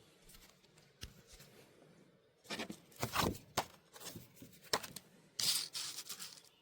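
Irregular handling noises: short rustles and scrapes with a few sharp clicks, in two busier clusters, one about halfway through and one near the end.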